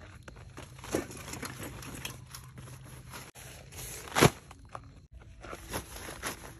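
Camping gear being handled and set down inside a tent: rustling of bags and tent fabric, crunching underfoot on gravel and small clicks, with a sharp knock a little over four seconds in.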